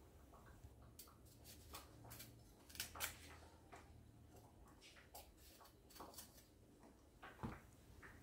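Faint, scattered clicks and light knocks of a kitchen knife trimming artichoke stems and of the artichokes and stem pieces being handled and set down on a board, with a couple of louder taps about three seconds in.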